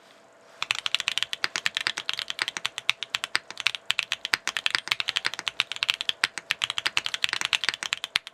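Fast continuous typing on a NEO65 Core Plus mechanical keyboard fitted with WS Heavy Tactile switches and KKB Nichirin keycaps, in a build with no foam inside: a dense run of quick keystroke clacks, starting about half a second in.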